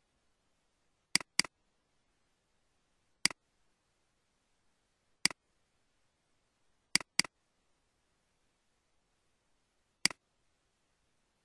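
Computer mouse button clicking: sharp single clicks and two quick double-clicks, one about a second in and one about seven seconds in, as folders are selected and opened.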